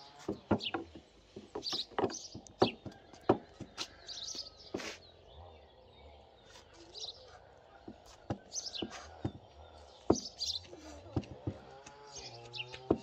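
Sharp knocks of a kitchen knife blade against a wooden board as a roll of dough is sliced, with birds chirping throughout. A long held animal call begins near the end.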